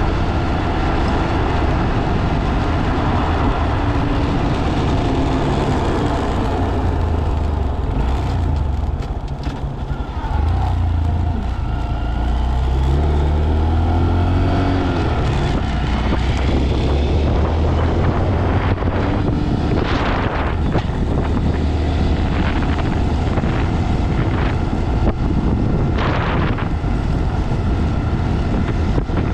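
Honda Monkey 125's single-cylinder engine running while riding, with wind buffeting the camera microphone. The revs dip briefly about ten seconds in, then rise again.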